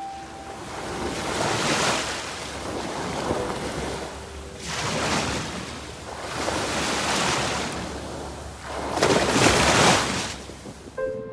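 Small waves breaking at the water's edge and washing up the sand, the hiss of each wave swelling and fading every couple of seconds, about five surges in all, the loudest about nine seconds in.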